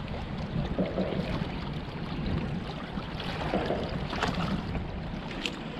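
Steady rush of wind and moving water, with a few faint brief clicks and knocks.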